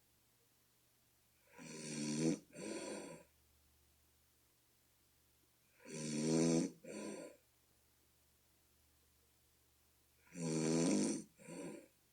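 A person snoring in sleep: three snores about four seconds apart, each a long pitched snore followed straight away by a shorter one. The snorer likens the sound to a bullfrog.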